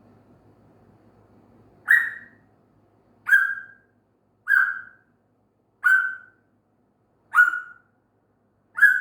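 African grey parrot whistling for attention: six short, sharp whistles on the same pitch, evenly repeated about once every second and a half, starting about two seconds in.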